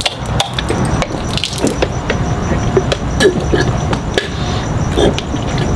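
Several people shotgunning cans of drink at once: liquid gushing and splashing out of the opened cans as they chug, with many sharp clicks mixed in.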